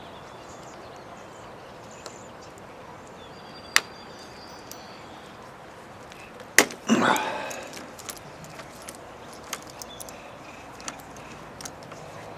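Allen key working the stock bar-end bolt on a motorcycle handlebar: scattered small metal clicks and ticks as the key turns, with a sharp click at about four seconds and a louder snap at about six and a half seconds, followed by a brief pitched sound.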